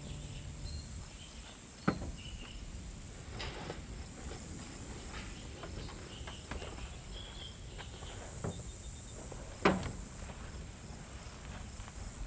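Steady high-pitched insect chirring, likely crickets, with scattered light clicks of camp gear being handled and two sharp knocks, about two seconds in and near ten seconds.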